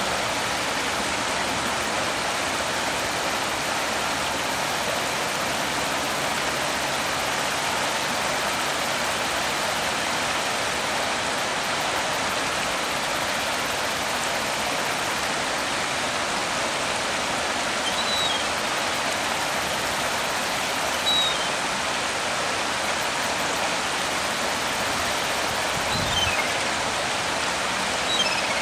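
Shallow river water rushing over rocks, a steady hiss. A few faint, short high chirps sound in the second half.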